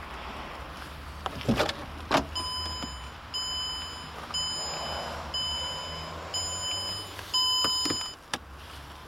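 A 2005 Mercedes-Benz CLS 350's driver's door unlatches with two clicks. Then the car's electronic warning chime beeps about once a second, with the door open and the key in the ignition. The chime stops with a click near the end, as a hand works the ignition key.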